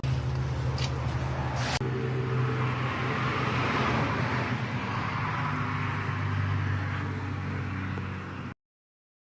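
A motor running steadily with a low hum, two sharp clicks in the first two seconds, and the sound cutting off abruptly near the end.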